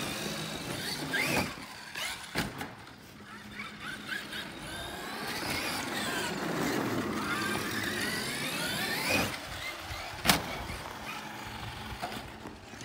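Electric RC monster truck's motor whining, rising and falling in pitch as it speeds up and slows down, with a few sharp knocks; the loudest comes about ten seconds in.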